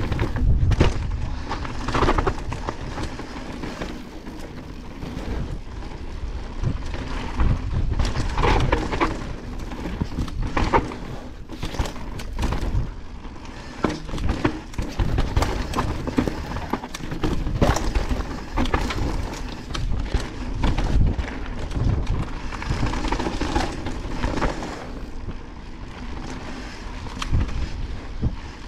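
Evil Wreckoning full-suspension mountain bike ridden fast down a dry, rocky trail: tyres rumbling and crunching over dirt and stones, with frequent sharp knocks and clatter as the bike hits rocks and roots. A low wind rumble on the helmet camera's microphone runs under it.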